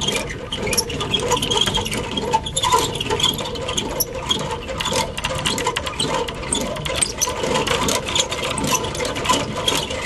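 Boat-trailer winch working steadily: a continuous, fast mechanical clatter of its gears and ratchet as the boat's line is worked.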